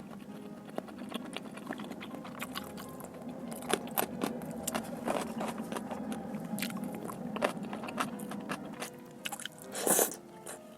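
A person chewing food close to the microphone, with many small sharp clicks and taps and a louder noisy burst near the end.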